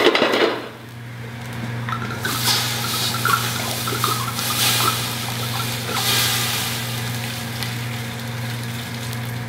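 Red wine glugging and splashing from a bottle as it is poured into a hot stockpot, coming in uneven swells, over a steady low hum.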